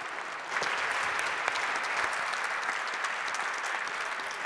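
An audience applauding; the clapping grows louder about half a second in and then holds steady.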